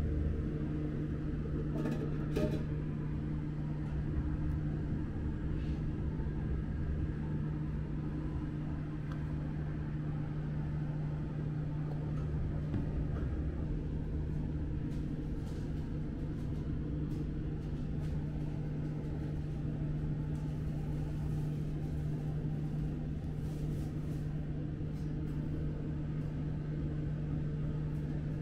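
Steady electric hum of a conveyor toaster oven's motor and fan, one low tone held throughout with a rumble beneath, and a couple of faint clicks about two seconds in.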